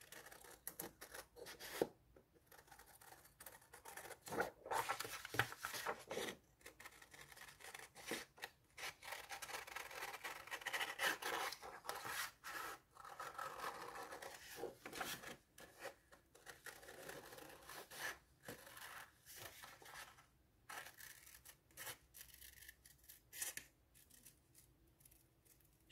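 Scissors cutting through a sheet of paper: a long run of short, irregular snips as a traced circle is cut out, growing sparser and fainter near the end.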